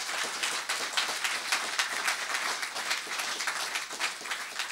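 An audience applauding, many people clapping at once in a steady, dense patter.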